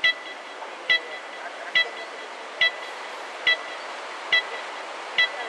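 Ocean surf washing in as a steady hiss, with a short, high-pitched beep repeating evenly a little faster than once a second over it.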